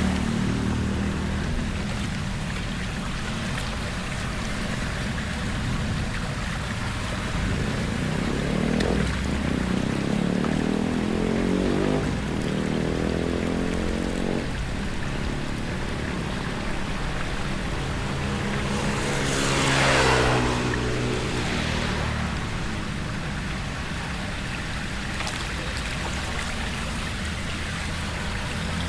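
Motor vehicles driving along a flooded road over a steady sound of running water. About twenty seconds in, one passes close: its engine pitch falls as a loud hiss of wet tyres and spray swells and fades.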